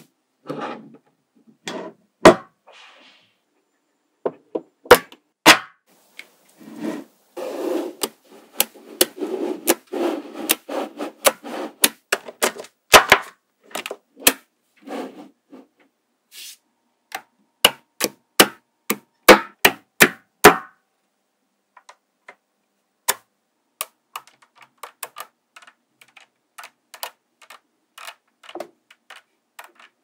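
Small neodymium magnetic balls snapping together with sharp clicks, with short rattling, scraping clusters between them as sheets of balls are pressed into a block. The clicks thin out to lighter, sparser ticks in the last third.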